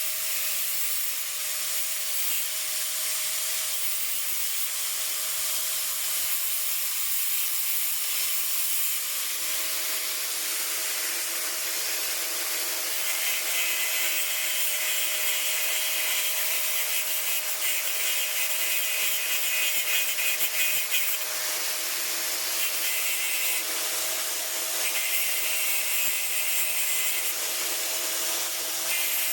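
Power tool cutting and grinding a steel hinge into a bracket: a steady motor whine under a continuous grinding hiss, with a harsher, brighter edge coming and going in stretches in the second half.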